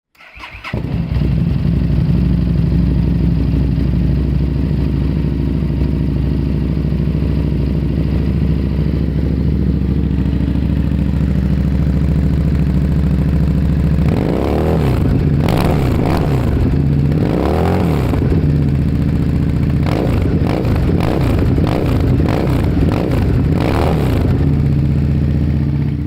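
An engine with a loud exhaust starts up and idles steadily, then is revved repeatedly through the second half, each rev rising and falling in pitch, before cutting off abruptly near the end.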